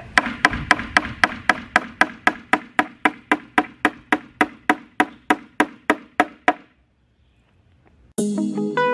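A hammer driving a finishing nail into a wooden board, with quick, even strikes about four a second that stop about six and a half seconds in. Guitar music starts near the end.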